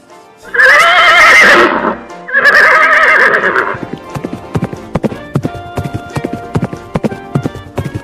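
Horse sound effect: two loud whinnies, then hooves clip-clopping in a steady rhythm over background music.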